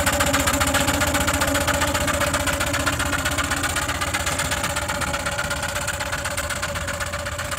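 Small scale-model steam traction engine under way, its exhaust beating in a rapid, even chuff. The sound fades gradually as the engine draws away.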